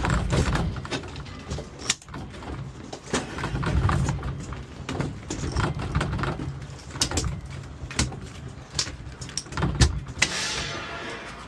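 Scattered knocks and clanks of metal scrap being handled while a refrigeration unit is taken apart, over a low rumble, with a short hissing rush about ten seconds in.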